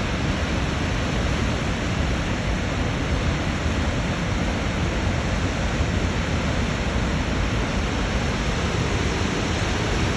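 Waterfall: the steady rush of falling water, an even noise with no let-up.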